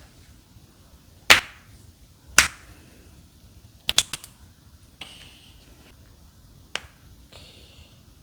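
Spinal joints cracking under a chiropractic manipulation: two loud pops about a second apart, then a rapid cluster of three or four cracks about four seconds in, and one more, fainter pop near the end.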